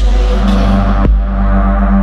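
Electronic music: held chords over a heavy, sustained bass, with a sharp beat about once a second.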